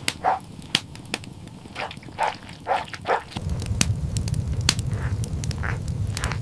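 A dog barking in short yips, several a second, then about three seconds in a wood fire starts crackling with a low steady roar.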